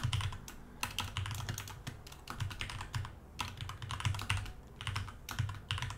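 Typing on a computer keyboard: a quick, irregular run of key clicks with a few short pauses between bursts.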